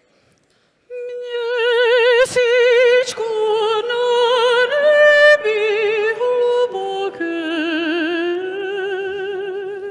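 Female operatic voice, a mezzo-soprano, singing long held notes with a wide, even vibrato in a slow descending phrase. It starts about a second in, and two sharp clicks cut across it at about two and three seconds in.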